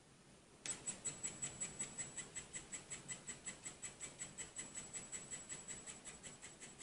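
Handheld 3D printing pen's filament-feed motor running as it pushes out plastic, a whirring tick about five times a second that starts abruptly a little under a second in.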